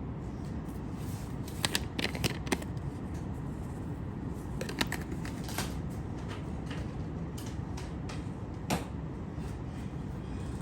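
Spice jar of Italian seasoning handled, shaken and tapped over a small dish: scattered sharp clicks and taps, a quick cluster about two seconds in and a few single ones later, over a steady low background hum.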